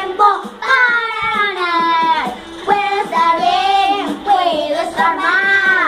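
Young children singing a song, with long held notes that glide up and down.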